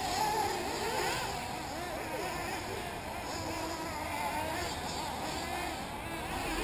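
Several 1/8-scale nitro RC buggies' small two-stroke glow engines revving up and down around the track, their high whine rising and falling in pitch as they accelerate and brake through the corners.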